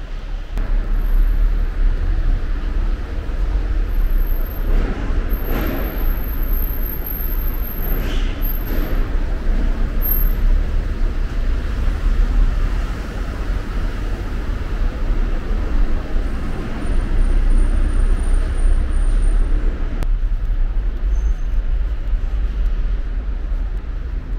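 Steady low rumble of a car moving slowly through an underground parking garage, with two brief swells about five and eight seconds in.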